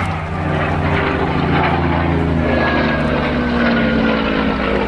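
Messerschmitt Bf109G-4's Daimler-Benz V12 piston engine running steadily as the fighter flies, the engine note sagging slightly in pitch in the second half.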